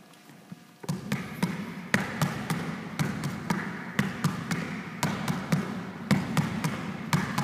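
A basketball being dribbled quickly in a crossover-and-between-the-legs dribbling drill, about three bounces a second in an uneven rhythm, starting about a second in.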